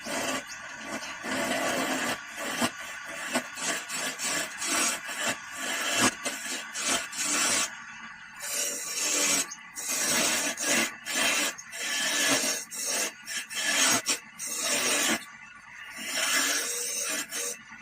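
Wood being abraded by hand in quick, repeated rough rubbing strokes, with a few short pauses.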